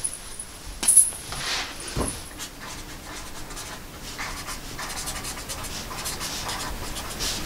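Paper being handled with a few sharp clicks in the first two seconds, then a pen scratching on paper in many short strokes.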